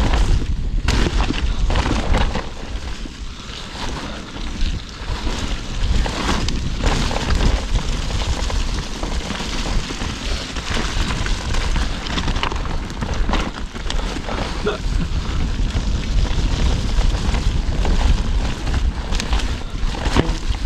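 Mountain bike riding over a muddy dirt trail, heard from a handlebar-mounted camera: heavy wind rumble on the microphone over tyre noise on dirt, with scattered clicks and rattles from the bike over bumps.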